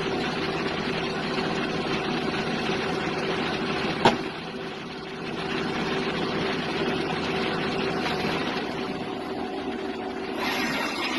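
Brass-cutting lathe running with a steady motor hum, a sharp click about four seconds in, and a hissier sound joining near the end.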